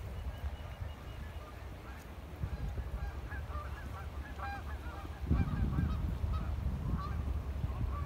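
Waterfowl calling: many short, pitched calls in quick succession, starting a couple of seconds in, over a low wind rumble on the microphone that grows louder about two-thirds of the way through.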